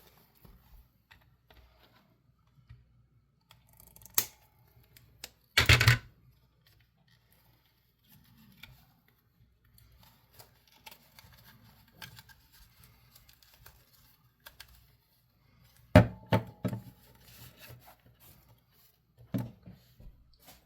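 Intermittent handling noises from working on a toy: scattered small clicks, a short loud scraping rustle about six seconds in, and a cluster of sharp knocks and clunks about sixteen seconds in.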